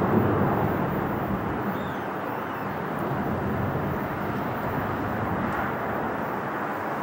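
Steady jet-engine noise from a Boeing 777's twin turbofans at takeoff power as the airliner climbs away. It is a little louder in the first second, then eases slightly as the aircraft draws off.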